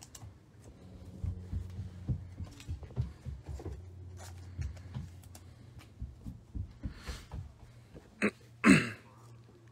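Baseball trading cards and a foil pack being handled: soft taps, slides and rustles as cards are sorted and laid onto a table, over a steady low hum. Near the end come two short, louder noisy sounds.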